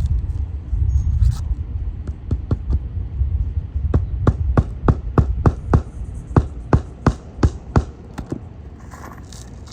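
Hand hammer driving roofing nails into a shingle: a run of sharp blows, coming faster to about three a second and stopping about eight seconds in. A low rumble runs under the first few seconds.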